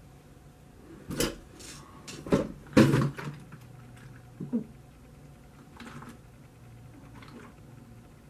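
A plastic gallon milk jug being grabbed and handled, with a few loud knocks in the first three seconds, then milk being gulped from it in short swallows about every second or so.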